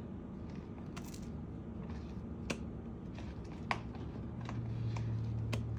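Scattered light clicks and taps from kitchen containers and utensils being handled, about four in all. A low steady hum comes in about four seconds in.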